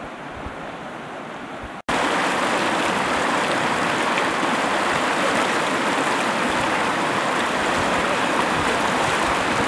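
Shallow, fast mountain river rushing over stones: a loud, steady rush of water that starts abruptly about two seconds in, after a quieter stretch of steady outdoor noise.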